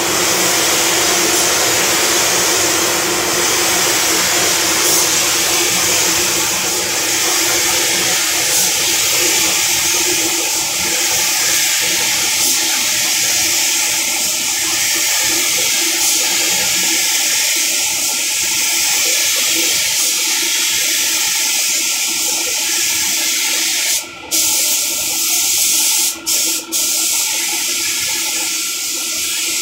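Steady loud air hiss from a gravity-feed paint spray gun spraying black paint, mixed with the paint booth's airflow. The hiss cuts out briefly three times about three-quarters of the way through.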